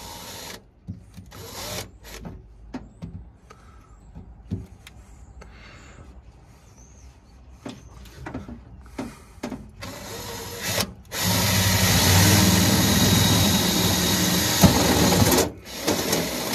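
Cordless drill (Bosch PSB 18 LI-2) with a step bit cutting through a painted steel body panel: a few short bursts and scattered clicks, then a long steady run of about four seconds in the second half, and one more short burst near the end.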